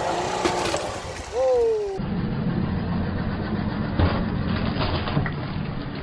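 A voice calls out twice in quick succession. Then a Tofaş car's engine runs steadily at low revs as the car creeps forward, with one short knock about four seconds in as the watermelon wedged between the two bumpers gives way.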